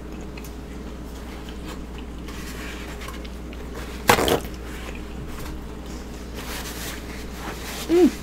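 A sheet of paper towel torn off its roll with one quick, loud rip about four seconds in, among faint chewing and rustling over a low steady hum. Just before the end comes a short hummed note that rises and falls.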